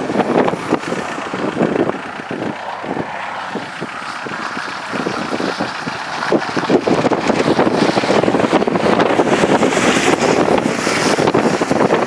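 Vehicle noise mixed with wind rushing over the microphone, full of small knocks and rattles; it eases for a few seconds about two seconds in, then picks up again.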